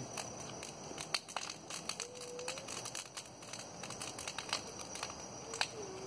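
Large wood bonfire crackling, with irregular sharp snaps and pops over a low hiss. A faint short held tone sounds about two seconds in and again near the end.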